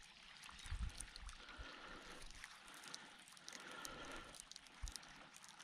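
Faint lapping and trickling water, with scattered small clicks and a few soft low thumps.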